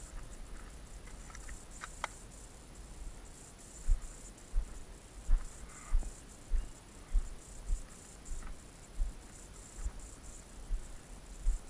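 Insects chirping steadily and high-pitched in the background. From about four seconds in, footsteps thud at an even walking pace, about one and a half steps a second.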